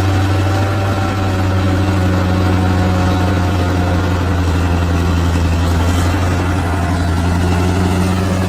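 Large bulldozer's diesel engine running at a steady, even speed, a deep low hum.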